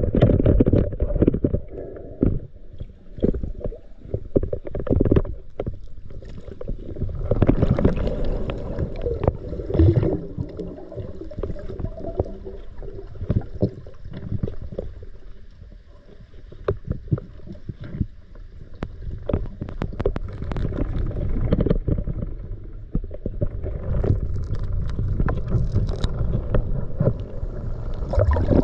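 Muffled water movement around a diver's camera: irregular sloshing and gurgling with many short knocks, swelling louder in stretches.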